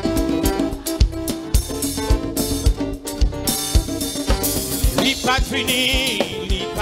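Live gospel praise-band music: a Yamaha Motif keyboard synthesizer playing sustained chords over a drum kit keeping a steady beat of about two hits a second. About five seconds in, a wavering high melody line comes in on top.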